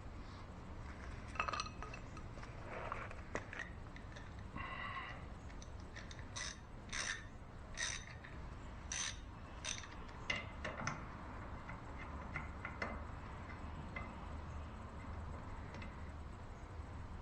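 Irregular metal clinks, taps and scrapes of hand tools and parts being handled while fitting the lower housing back onto an outboard motor, heaviest in the middle and thinning out near the end.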